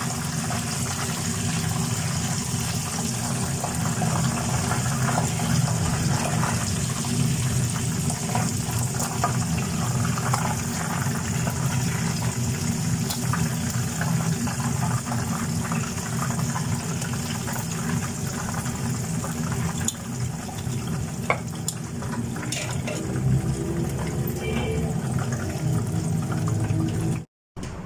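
Chicken pieces deep-frying in a pan of hot oil: a steady sizzle and bubbling with small crackles, over a low steady hum.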